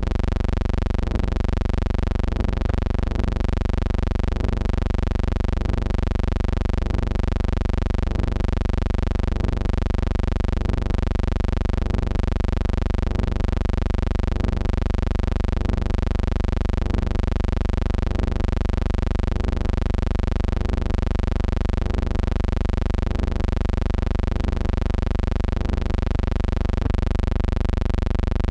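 Steady low electrical hum with a buzzy series of overtones and faint scattered ticks, unchanging throughout; it is not the boat's engine or water.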